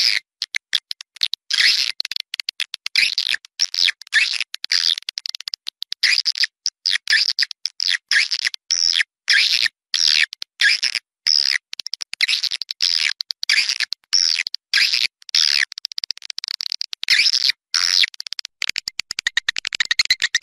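Edible-nest swiftlet lure recording: rapid, high twittering chirps in quick clusters with brief gaps, the outdoor call used to draw swiftlets to a swiftlet house. Near the end a fast, even train of pulses at a steady pitch takes over.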